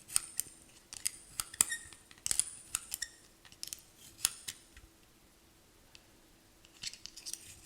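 Tweezers clicking and scraping against the inside of a petrol lighter while trying to grip the wick, an irregular run of small sharp metallic ticks that stops for about two seconds near the end.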